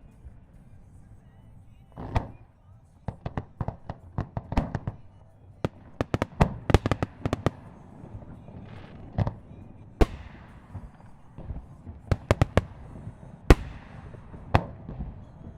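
Fireworks shells bursting in rapid, irregular volleys of sharp bangs, each trailing an echoing rumble, with heavy single booms about ten and thirteen and a half seconds in.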